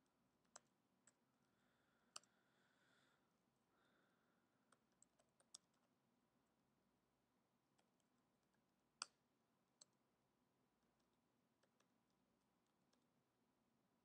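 Faint, scattered computer keyboard key clicks over near-silent room tone, about a dozen taps at uneven intervals, with a small run of them around five seconds in and the loudest single click about nine seconds in.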